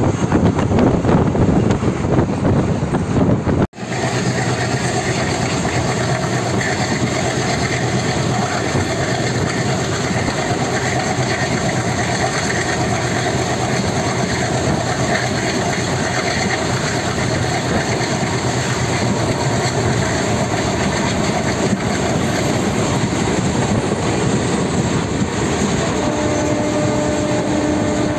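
Steady running noise of a passenger train from aboard a moving carriage: a continuous rumble and hiss, rougher and louder for the first few seconds before a brief cut, then even.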